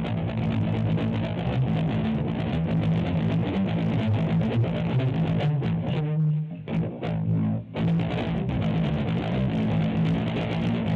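Electric guitar played through a Peavey Vypyr VIP 2 modeling amplifier: a busy run of picked notes with a short break about six seconds in.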